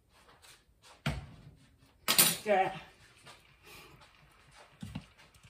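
A utensil stirring in a cooking pot of cabbage and grease: scattered light clinks and scrapes, with a sharper knock against the pot about a second in and another near the end.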